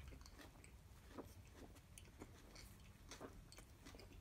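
Faint close-up chewing of a mouthful of Whopper burger, with soft wet mouth clicks a few times a second.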